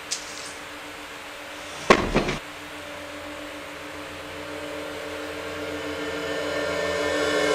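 Film sound design: a low held drone with a loud hit about two seconds in, then a swelling tone that builds steadily louder toward the end.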